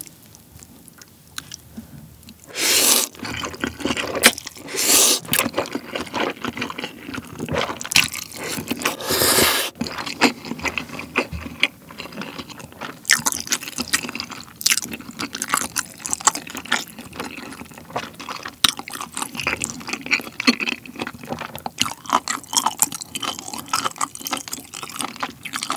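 Close-miked eating of jjajangmyeon (black bean noodles): a few loud slurps of noodles in the first ten seconds, then steady wet chewing with many small mouth clicks.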